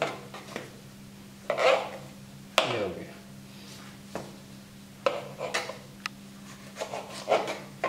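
Knife cutting tomatoes into quarters: a series of short, separate knocks and clinks of the blade against the surface beneath, over a steady low hum.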